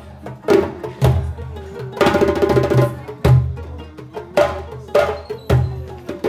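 Live West African hand drumming: djembe-type drums struck with the hands in a quick, uneven pattern of sharp slaps and deep bass tones, with a stringed instrument playing along.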